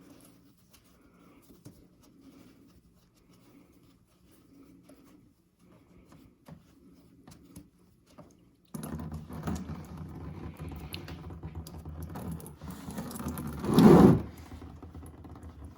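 Faint ticks of handling, then coolant starts running steadily out of the tractor radiator's drain petcock into a drain pan about halfway through. One loud knock comes near the end.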